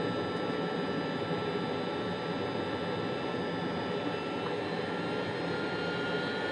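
Jet aircraft's engine running at low power on the runway after landing, heard from inside the closed cockpit: a steady rush with a thin turbine whine that rises slightly in pitch in the second half.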